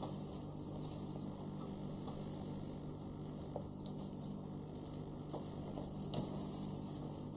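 Faint background hiss with a low steady hum, broken by a few light ticks, as a plastic model deck part is handled.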